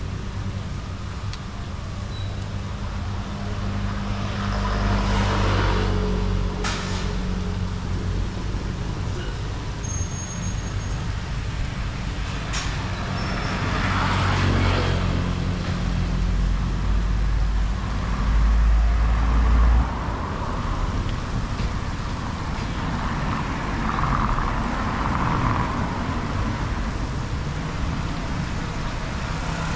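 Road traffic: engines running and vehicles passing one after another. A deep rumble builds and cuts off suddenly about two-thirds of the way through, and there are a few sharp clicks.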